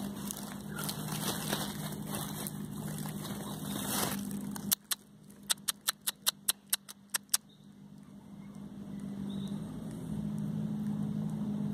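A steady low motor hum, broken about five seconds in by a run of about ten sharp clicks, roughly four a second, before the hum fades back.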